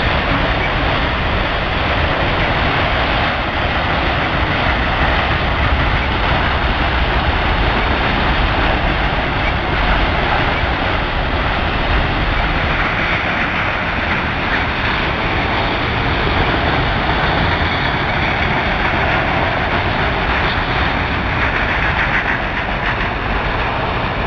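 Freight train of autorack cars rolling past close by: a steady, loud rumble of steel wheels on the rails.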